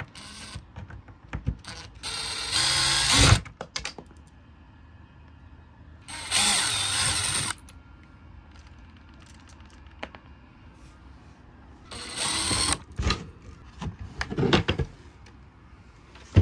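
Cordless drill-driver with a flat-head bit run in three short bursts of about a second each, backing screws out of a hinge set in wood, with small clicks and knocks between the runs.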